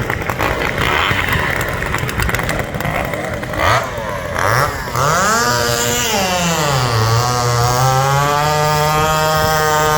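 Two-stroke racing chainsaw of the Hot Saw Limited class: a couple of short bursts, then the engine catches about five seconds in, revs up and back down, and settles into steady running.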